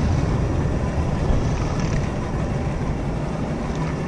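Boat engine running steadily: a low, even rumble under a wash of wind and water noise.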